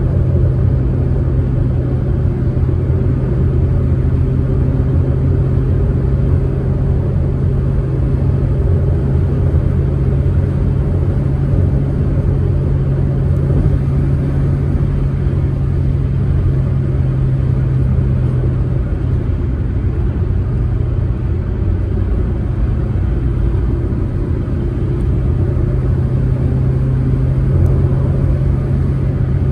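Proton Saga car driving at a steady pace, its engine and road noise making a constant low drone that eases slightly about two-thirds of the way through.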